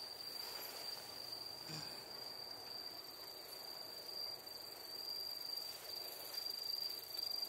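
Crickets singing: a faint, steady high-pitched trill.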